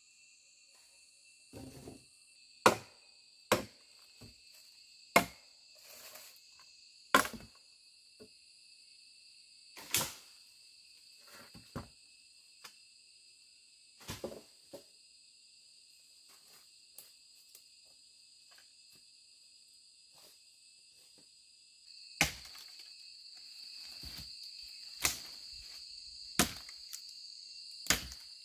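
Steady high chirring of an insect chorus, which gets louder about three-quarters of the way through. Irregular sharp knocks, a few seconds apart, stand out above it as the loudest sounds.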